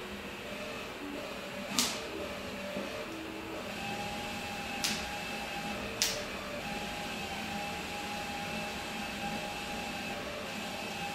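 Cordless drill running steadily, driving a windshield cut-out winch that winds in cutting string through the urethane bead; its whine steps up in pitch about four seconds in. Three sharp clicks sound over it.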